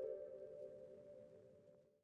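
Ambient background music with sustained held tones, fading out within the first second, then near silence.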